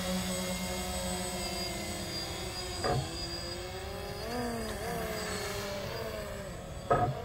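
DJI Phantom FC40 quadcopter in flight: a steady, several-toned motor and propeller whine whose pitch wavers and rises briefly about four to five seconds in as the motors correct. The drone is drifting instead of holding its hover, which the owner puts down to the compass or the IMU.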